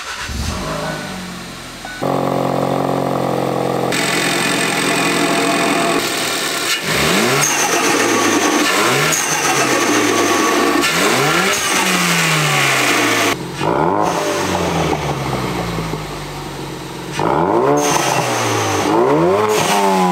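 Ford Focus RS engine starting up for the first time with its new aluminium intake manifold, then running at a steady idle. From about seven seconds in it is revved again and again, each blip rising quickly and falling back slowly.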